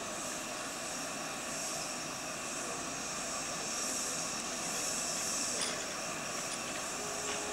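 Metre-gauge steam locomotive standing at rest with steam hissing steadily out of it, swelling slightly partway through.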